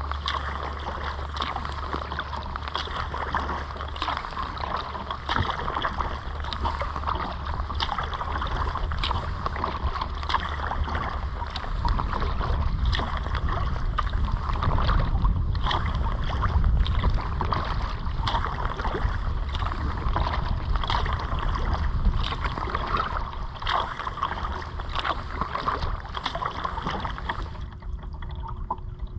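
Kayak paddle strokes dipping into the water, with steady splashing and dripping and a low wind rumble on the microphone.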